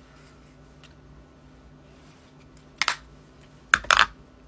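Makeup being handled while blush goes on: a short scratchy brush sound about three seconds in, then a quick cluster of louder clicks and taps on plastic just before the end.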